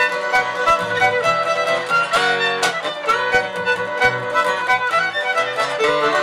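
A fiddle playing a tune with long bowed notes, over an acoustic guitar strumming a steady rhythm.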